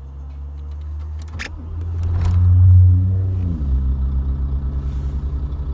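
Truck diesel engine idling, revved once about two seconds in, then falling back to a steady, pulsing idle while the driver checks its oil pressure after a low-oil-pressure warning.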